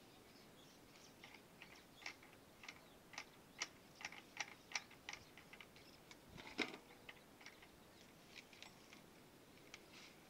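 Faint, irregular light clicks and taps, about one or two a second, from hands handling the plastic fittings and cable on a solar water pump's pipe, with one sharper click about two-thirds of the way through.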